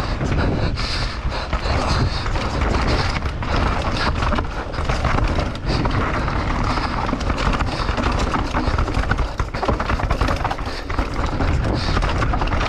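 Mountain bike descending a rough dirt and rock trail at speed, heard from a camera mounted on the bike: tyres rolling and skidding over the ground, with a constant clatter of knocks and rattles from impacts, and wind rushing over the microphone.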